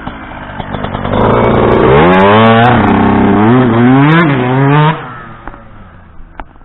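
2007 Yamaha YZ125's single-cylinder 125 cc two-stroke engine on the pipe as the dirt bike passes close: the pitch climbs and drops several times with throttle and gear changes, loudest from about one to five seconds in, then falls away quickly.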